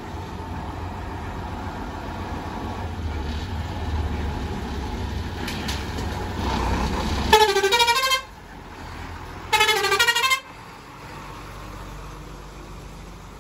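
Diesel truck engine running at low revs, then a truck horn sounds two blasts of just under a second each, about two seconds apart; after the horn the engine sound falls quieter.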